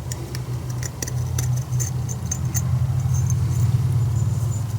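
Small light clicks and ticks of metal piston rings being worked by hand onto a chainsaw piston, mostly in the first half, over a steady low hum.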